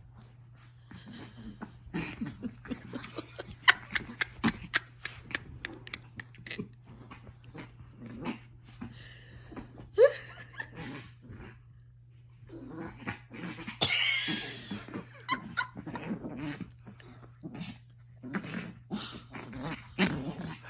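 Angry Chihuahua growling in bursts over the blanket, with a short rising yip about ten seconds in and a longer, louder growl a few seconds later.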